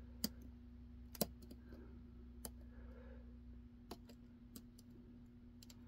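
Faint, scattered clicks of a lock pick and tension wrench working the pin tumblers of a pin-in-pin padlock (a Mighty Lock MTL clone), about one click a second over a faint steady hum.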